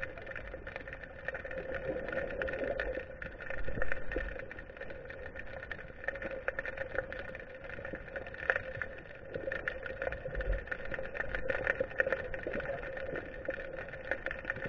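Underwater sound picked up by a GoPro inside its waterproof housing: a steady hum with scattered clicks and crackles.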